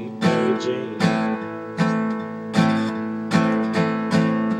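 Acoustic guitar strummed in a steady rhythm, with a strong strum about every three quarters of a second and lighter strokes between.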